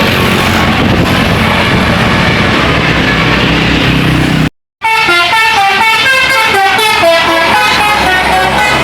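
Loud noise of a tour bus passing for the first half. After a brief cut, a multi-note 'telolet' bus horn plays a quick melody of short, stepped notes.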